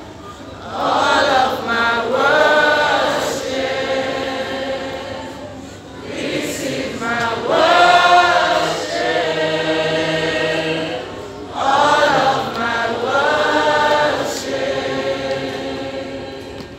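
A choir singing a gospel worship song in three long phrases, each swelling and then fading.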